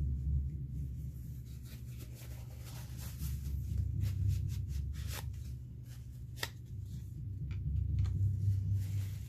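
Paper towel crinkling and rustling in short crackles as it is handled and pressed over a plastic stencil, with a few sharper crackles in the middle. A low steady hum runs underneath.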